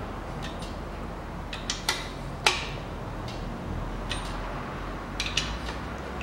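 Hand tools clicking and clinking on a bare engine block as the crankshaft main bearing cap bolts are turned tighter: a handful of short, sharp metallic clicks, the loudest about two and a half seconds in, over a steady low hum.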